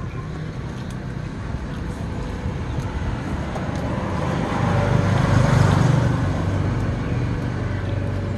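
A motor vehicle passing on the road, growing louder to a peak about five and a half seconds in and then fading, over steady traffic rumble.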